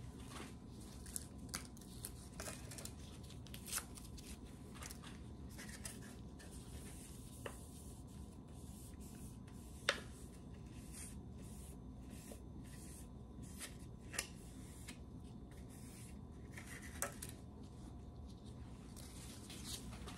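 Gloved hands wiping lab equipment (plastic weighing boats, a spatula, a digital scale) with alcohol prep pads: soft rubbing and rustling with scattered light taps and clicks.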